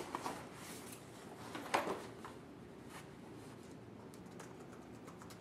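Quiet room with a few soft knocks and rustles as a laptop is pulled from a backpack, then faint clicks of typing on a MacBook keyboard.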